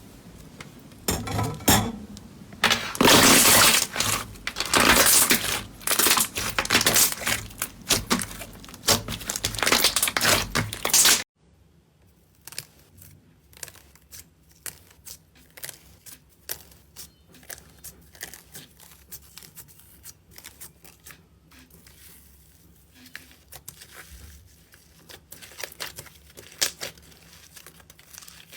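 Slime being squeezed, pressed and stretched by hand, crackling and popping with many small clicks. Loud and dense for the first eleven seconds or so, then it cuts abruptly to a quieter stretch of sparse pops and squishes.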